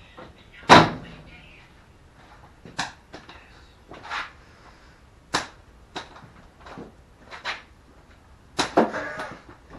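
A hand-tool socket being knocked and tapped to free a sheet metal screw stuck inside it: about eight sharp knocks at uneven intervals. The loudest comes about a second in, and a quick cluster of knocks with a rattle comes near the end.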